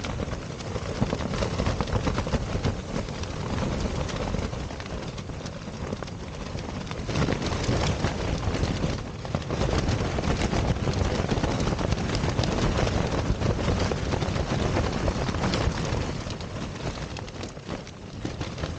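Strong wind gusts buffeting a Ferrino Pumori mountaineering tent: the flysheet flaps and snaps rapidly and irregularly over a steady rumble of wind. It gets a little louder partway through and eases near the end.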